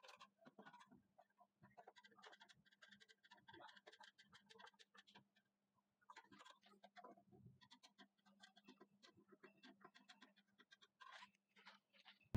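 Near silence, with faint scattered small clicks and scratches.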